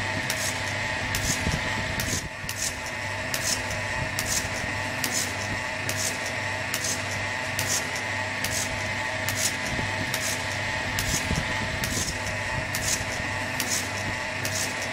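Portable bucket milking machine running under vacuum: the electric vacuum pump runs with a steady hum while the pulsator on the bucket lid gives short hisses evenly, about once a second, as the cups milk the cow.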